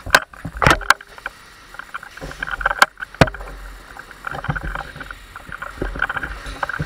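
Footsteps and gear rustling from an airsoft player moving close to a body-worn camera, with several sharp knocks in the first few seconds and an irregular patter of smaller knocks after.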